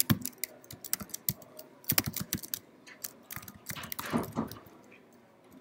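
Computer keyboard being typed on: quick, irregular key clicks, thinning to a pause about five seconds in.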